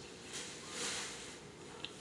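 A person chewing a mouthful of food, with wet mouth and lip-smacking sounds in two soft bursts and a small sharp click near the end.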